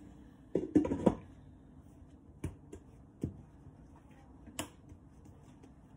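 Handling noises from hands working bread dough on a silicone baking mat, next to a steel mixing bowl and a plastic dough scraper: a quick cluster of knocks and rubbing about a second in, then a few separate light taps.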